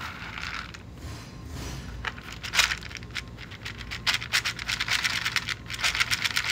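Dry cat kibble scraping and rattling in a plastic bowl as a hand stirs it. From about four seconds in, a quick run of crisp clicks follows, a cat crunching the kibble, while the bowl is nudged about.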